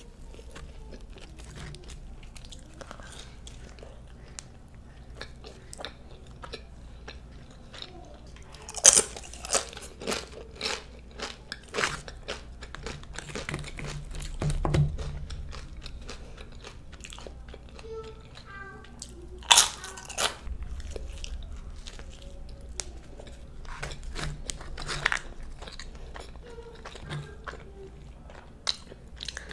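Close-miked eating: chewing with many short crunchy bites, the loudest crunches about nine and twenty seconds in.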